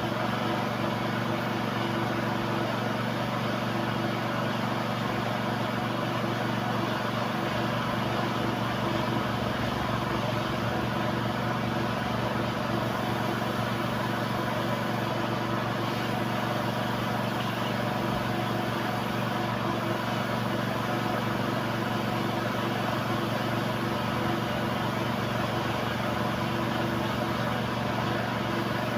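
2008 Honda CR-V engine idling steadily with a replacement throttle body fitted, the idle holding even with no revving.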